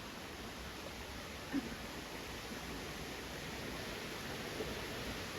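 Steady rush of a waterfall into its pool, an even hiss of falling water, with one short, sharper sound about a second and a half in.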